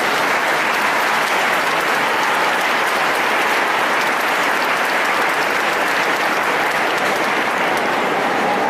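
A large congregation applauding steadily with dense clapping.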